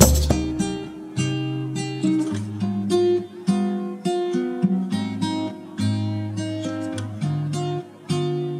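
Music: an acoustic guitar strumming and picking chords, a new chord struck about every half second to a second.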